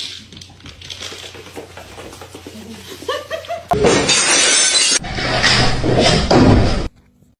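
Loud crash of something breaking, with a shattering sound, in two long noisy stretches starting nearly four and five seconds in, cut off abruptly near the end.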